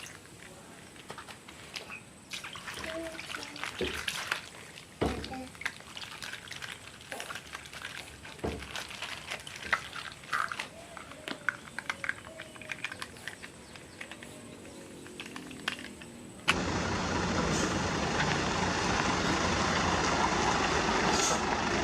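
Plastic toys being handled, a run of light clicks and knocks. About three-quarters of the way in, a louder steady rushing noise cuts in suddenly and takes over.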